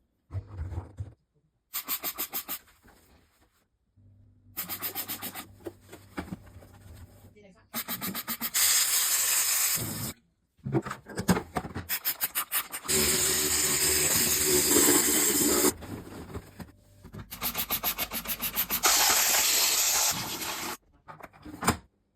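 Washing machine being scrubbed by hand. It comes in repeated runs of quick back-and-forth rubbing strokes, broken by short pauses, with two longer stretches of steady scrubbing hiss in the second half.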